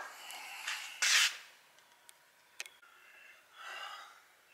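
A man's short, sharp breath out, followed by a faint click and a softer breath a couple of seconds later.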